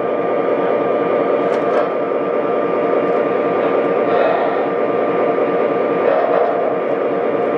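Lionel O-gauge toy train creeping slowly forward on its track: a steady running noise of the locomotive and cars rolling on the rails, with a constant thin tone underneath.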